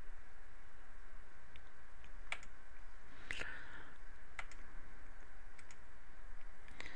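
Computer mouse button clicks, several sharp single clicks at irregular intervals as objects are selected, over a steady faint microphone hiss and low hum.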